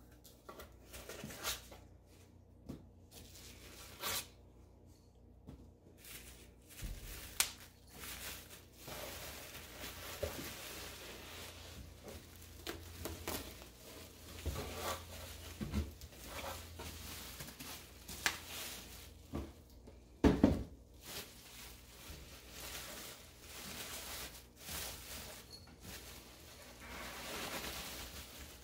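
Packaging being handled: bubble wrap rustling and crinkling, with foam packing blocks and a cardboard box being shifted and scattered knocks. A heavier thump comes about twenty seconds in.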